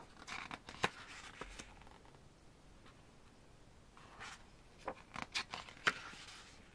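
Pages of a hardcover photobook being turned by hand: paper rustling and flicking with a few sharp page snaps. It comes in two bursts, one at the start and another about four seconds in.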